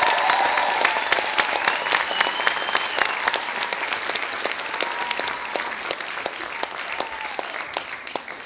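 Theatre audience applauding, a dense clatter of clapping with a few drawn-out cheers, the applause slowly thinning and fading near the end.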